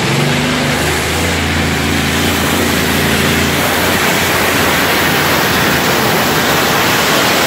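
Competition pulling tractor running at full throttle as it hauls the weight sled down the track. A steady engine note is heard in the first few seconds, and then an even, loud rushing noise takes over.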